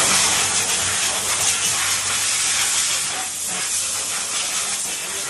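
A loud, steady hiss, like air or gas rushing out under pressure.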